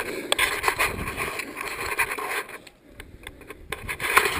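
Footsteps crunching through dry leaves and twigs, with brush scraping and rubbing, quieter for a moment about three seconds in.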